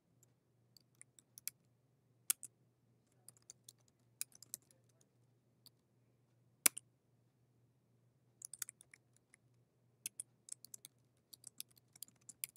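Quiet typing on a computer keyboard: keys tapped in short quick bursts, with a few sharper, louder single clicks in between.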